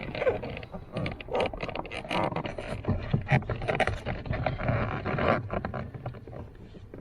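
Plastic steering-column cover of a Chevy Cruze being pulled and worked loose by hand: irregular clicks, creaks and scrapes of plastic trim.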